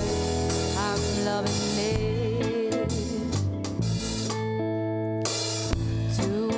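Live pop band playing: a female voice sings a wavering, drawn-out line over electric guitar, bass, drum kit and synth keyboard. About four seconds in the drums drop out briefly, leaving a held chord, and then the full band comes back in.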